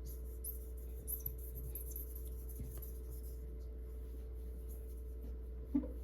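Faint rubbing of a wet wipe on the scanner's glass bed as grime is wiped off, over a steady low electrical hum, with a soft knock or two.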